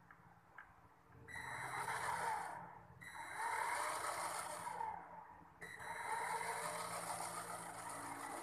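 A small electric motor on an RC model Chinook helicopter starts up about a second in, running with a high whine and rotor noise. It cuts out briefly twice, near the third second and again about five seconds in, then runs on steadily.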